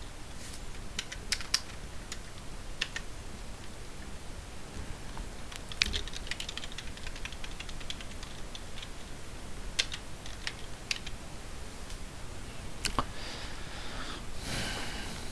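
Typing on a computer keyboard: scattered single keystrokes, with a quick run of several keys about six seconds in.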